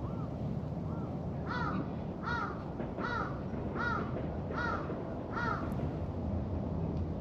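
A crow cawing repeatedly: about six harsh, evenly spaced caws a little under a second apart, after two fainter ones.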